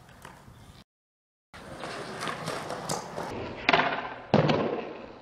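Skateboard wheels rolling on smooth concrete after a brief gap of dead silence, then the tail snapping on the ground as the board is popped into a flip trick and, about two thirds of a second later, the board landing with a loud clack.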